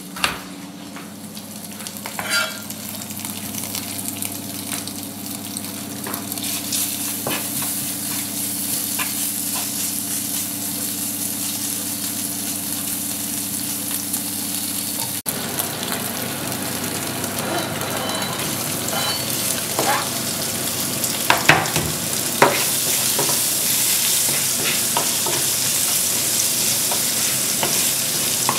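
Diced pork fat (shpik), then sliced onion, sizzling in a frying pan while a wooden spatula stirs and scrapes, with short taps against the pan. In the first few seconds a knife taps on a plastic cutting board as onion is sliced; the sizzle grows louder after a cut about halfway.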